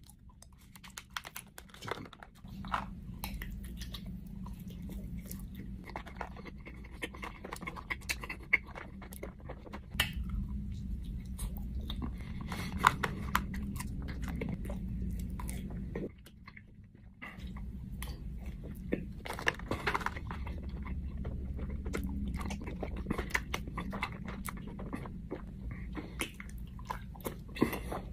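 Mouth sounds of chewing Gushers fruit snacks coated in Carolina Reaper pepper: many small wet clicks and smacks as the gummies are bitten and chewed. There is a short pause in the chewing about 16 seconds in.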